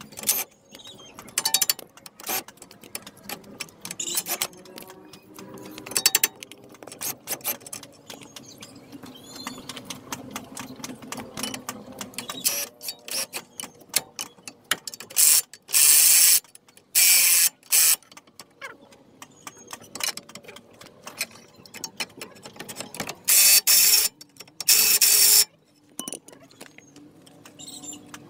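Tools clicking and knocking on metal parts, with a few short, loud spells of a high rushing noise: three about halfway through and two more near the end.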